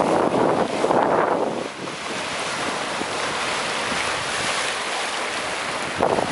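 Sea surf rushing, with wind buffeting the microphone, strongest in the first second and a half and again just before the end.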